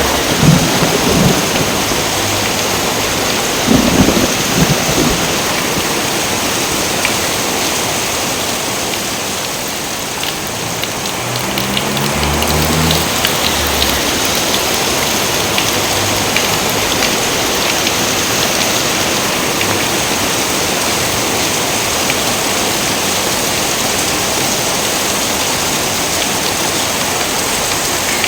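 Steady rain falling, with a crack of thunder about four seconds in and a low rumble of thunder a little before the middle.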